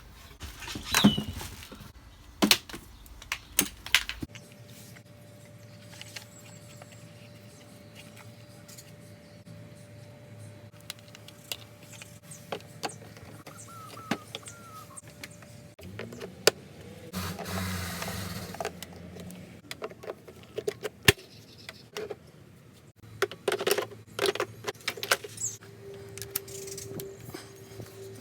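Electric pressure washer parts being handled and fitted together during setup: scattered clicks, knocks and rattles, with a longer rustling noise about 17 seconds in and a faint steady hum through the middle.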